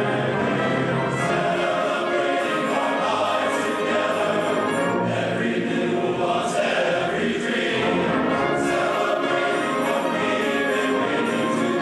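Large men's chorus singing in full voice, accompanied by a concert band of wind instruments, without a break.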